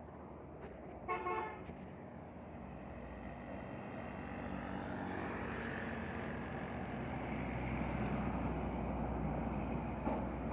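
A short horn toot about a second in, then a heavy truck hauling a shipping container approaching and passing close by, its engine and tyres growing steadily louder to a peak near the end.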